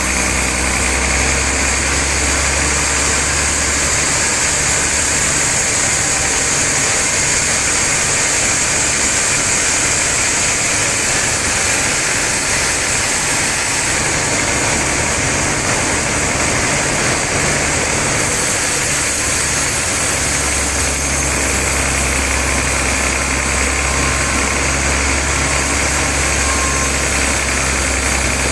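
Sawmill machinery running with a loud, steady mechanical drone. The deep hum underneath drops away for a long stretch in the middle and then comes back.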